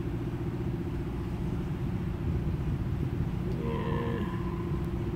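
Steady low rumble with a constant low hum, with a brief faint tone about four seconds in.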